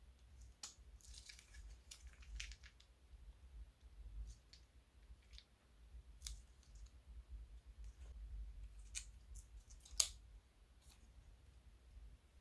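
Crunchy slime crackling and clicking as it is pressed and worked, in faint, irregular snaps and short crackly clusters, with one sharper click near the end.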